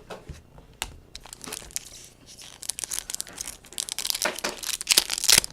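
Foil trading-card pack wrappers crinkling and tearing as packs are ripped open and handled: a few scattered crackles at first, then a dense, busy crinkling from about halfway through.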